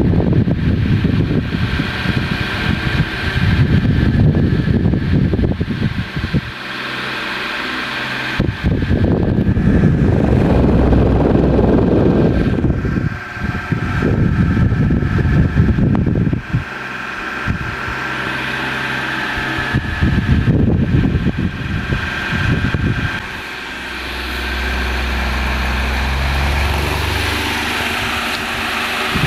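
Sky Power 40 cm pedestal fan running with a steady motor hum, now working properly after repairs to its rear bushing and oscillation. Its airflow hits the microphone as low wind noise that swells and fades every few seconds as the fan oscillates.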